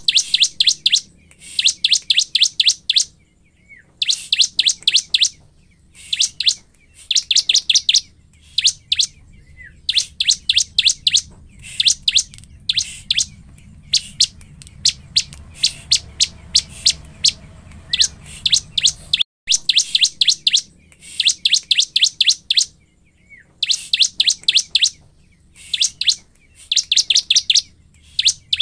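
Prinia (ciblek) singing: bursts of about a second of rapid, high, repeated notes, one burst every second or two.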